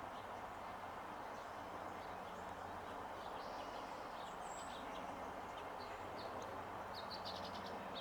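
Small songbirds chirping: short, high chirps from a few seconds in, with a quick run of them near the end, over a steady outdoor background hiss.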